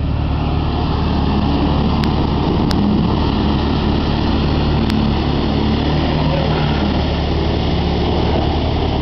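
Four-door Jeep Wrangler engine revving under load as it ploughs through a mud pit and pulls out of it, over a steady low engine drone. A few sharp clicks come in the middle.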